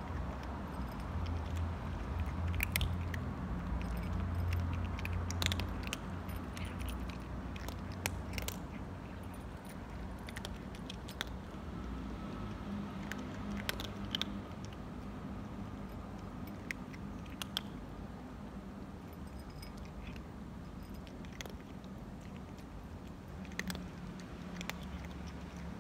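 A tortoiseshell cat eating dry cat food from a glass bowl: irregular sharp crunches and clicks as it chews, with several louder ones about 3, 5, 8 and 14 seconds in. A low steady hum runs underneath.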